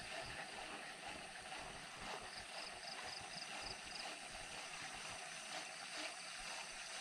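Faint water lapping under a boat on a calm lake, a low steady wash. A short run of quick, faint high chirps comes about two to four seconds in.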